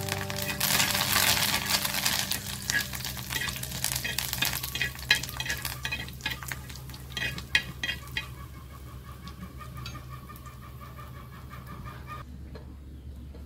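Curry leaves and dried red chillies sizzling in hot oil in a clay pan, the tempering for the curry. A metal spoon stirs them, clicking and scraping against the pan through the middle, and the sizzle dies down over the last few seconds.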